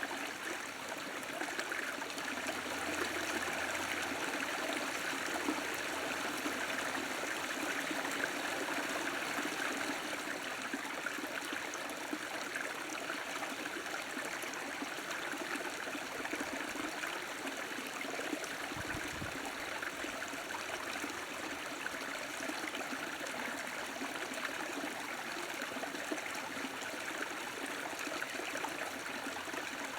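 A stream running, a steady rush of flowing water.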